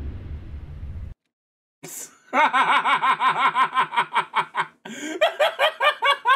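Low film-score music cuts off about a second in. After a short pause a man laughs hard, in rapid repeated 'ha' bursts, in two long runs.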